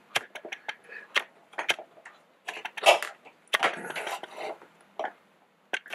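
Clicks, taps and light knocks of a small drip coffee maker's brew basket and cover being handled and adjusted, with two denser bursts of rattling about three and four seconds in.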